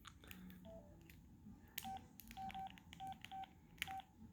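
Samsung A870 flip phone's keypad beeps: six short beeps at one pitch as its buttons are pressed, each with a faint key click, starting about two seconds in.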